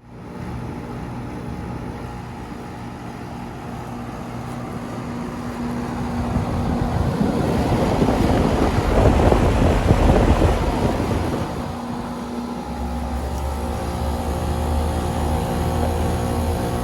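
A motor vehicle passing by: its noise swells over a few seconds, peaks about halfway through and fades, over a steady low mechanical hum.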